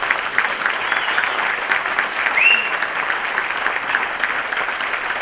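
Audience applauding at the end of a song: a dense, steady patter of hand claps, with one short rising whistle from the crowd about two and a half seconds in.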